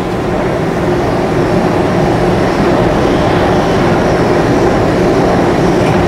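Loud, steady rumble of a train in the station, slowly growing a little louder.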